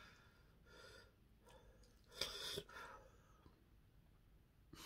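Near silence broken by a few soft breaths through the nose, the clearest a short sniff-like breath about halfway through.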